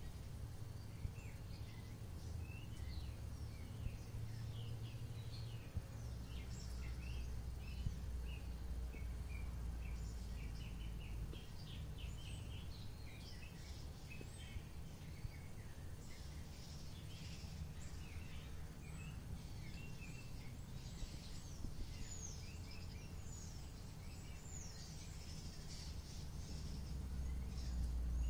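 Birds chirping and twittering, many short calls that grow busier about halfway through, over a steady low rumble.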